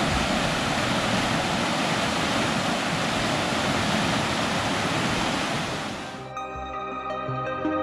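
River rapids rushing steadily over rock ledges. About six seconds in the water sound cuts off, and soft ambient music with sustained tones takes over.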